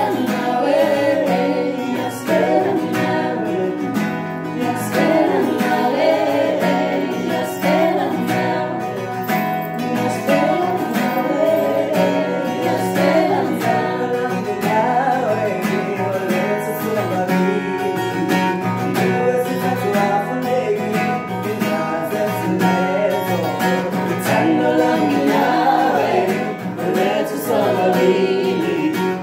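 Acoustic guitar played as accompaniment to a young man singing a melody, continuous throughout.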